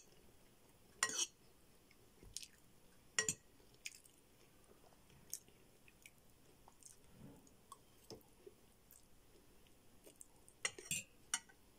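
Close-miked chewing of spaghetti and shawarma: soft, wet mouth smacks and clicks, spaced a second or more apart, with a quick cluster near the end.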